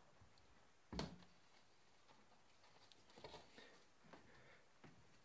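Near silence: room tone, with one soft knock about a second in and a few faint rustles and clicks near the end.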